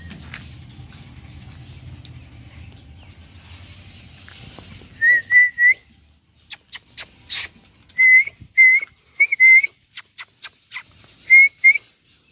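A person whistling short, clear, slightly bending notes in twos and threes, with sharp clicks in between, calling the Rottweiler puppy. For the first few seconds there is only a faint low rumble.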